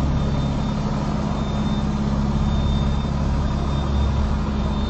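Semi truck's diesel engine running steadily, heard from the open cab window.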